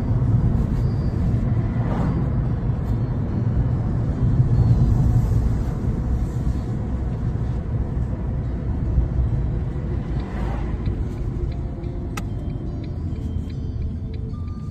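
Steady low rumble of a car on the move, heard from inside the cabin. Faint music with a ticking beat comes in near the end.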